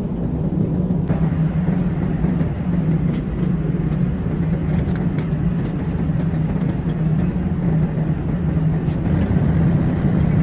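Steady drone of an airliner cabin in flight: jet engine and airflow noise, low and unbroken, with a few faint clicks.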